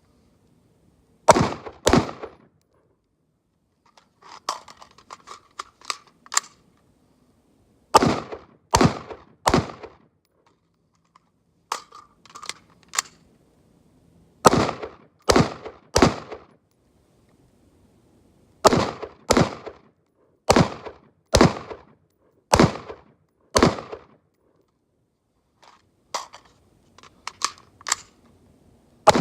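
Daniel Defense Mk18 AR pistol firing 5.56 rounds in semi-auto: about fourteen sharp shots in strings of two, three, three and six, roughly one a second within each string. Quieter clicks and clinks come in the pauses between strings.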